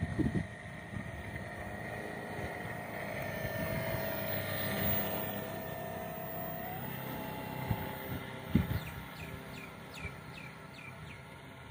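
Brushless electric motor of a homemade RC boat running with a steady whine, loudest as the boat passes close about halfway through, then fading as it moves away. Near the end a bird calls in a quick series of short falling chirps.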